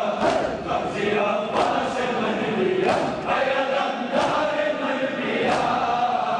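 A crowd of men chanting a noha in unison, with the sharp slaps of hands striking chests in matam cutting through about once a second.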